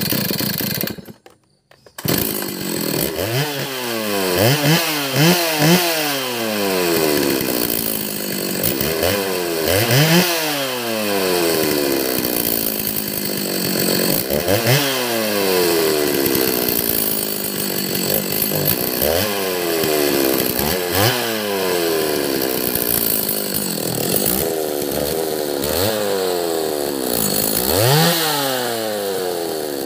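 Stihl MS 310 two-stroke chainsaw engine, run with its bar and chain off. It catches about two seconds in after a pull of the starter cord, then is revved up and let fall back repeatedly, over and over. This is a test run after work on its carburettor.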